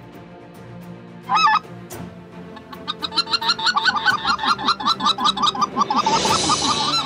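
A speck (white-fronted goose) call blown by a hunter: one short burst of calls about a second in, then from about three seconds a fast, even string of short bending notes, about five a second.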